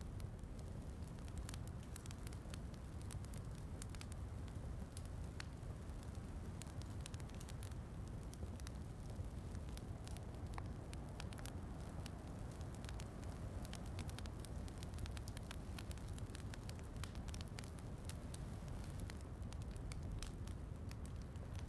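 Wood fire crackling in a fireplace, with frequent small sharp pops over a steady low rumble of rain.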